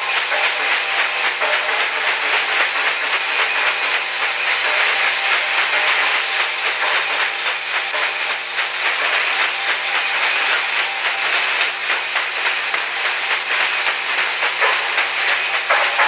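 Loud, steady hiss of noise on an old analog recording, with a faint low hum beneath it.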